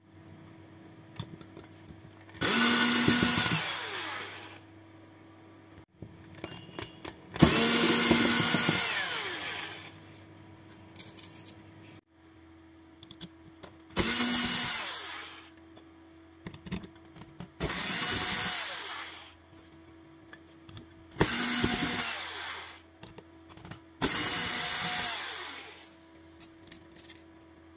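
Electric screwdriver running in six short bursts of about two seconds each, backing out the small screws that hold a hard drive's circuit board.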